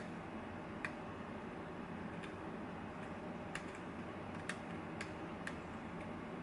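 A lock being single-pin picked: a handful of small, irregular clicks and ticks as the pick works the pins in the lock's keyway, over a steady low background hum.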